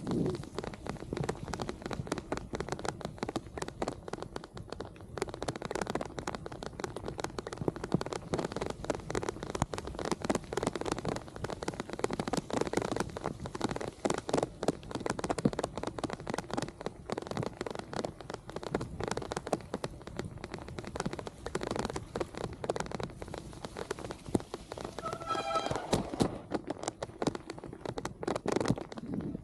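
Dense, steady crackling and pattering of rain hitting the camera and microphone on a moving bicycle. A brief whining tone sounds about 25 seconds in.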